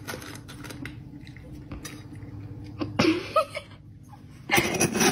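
A cat pawing and knocking at a metal food bowl on a hard floor: scraping and clinking, with louder clattering about three seconds in and again near the end.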